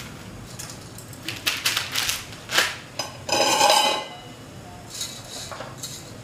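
Metal cookware clattering: several sharp clinks of utensils and a lid against the pots, then a louder ringing metallic scrape lasting under a second, about halfway through.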